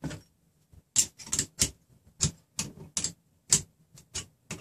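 A wrench turning a nut on the steel threaded-rod frame of a RepRap Prusa Mendel 3D printer kit, making a series of sharp metallic clicks, about two or three a second, as the frame is tightened.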